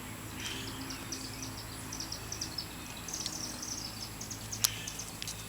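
Lock pick working the serrated and spool pins of a Brinks 527 padlock under tension, making light, irregular clicks. One sharper click comes near the end as the core drops into a false set.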